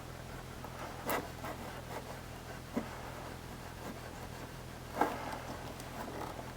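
Faint rubbing and scraping of a paintless dent repair rod, its soft tip capped, taped and waxed, pushing and gliding on the back of a car's quarter-panel sheet metal. Three short louder scrapes come about one, three and five seconds in, over a steady low hum.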